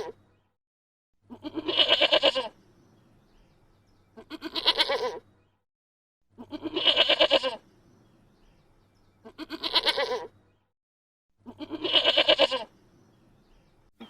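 A farm animal bleating: five quavering calls about a second long each, one roughly every two and a half seconds, with another call just ending at the start.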